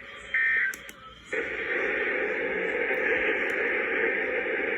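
A short burst of Emergency Alert System digital data tones, the end-of-message code, about a third of a second in. Then a steady radio static hiss from about a second and a half on.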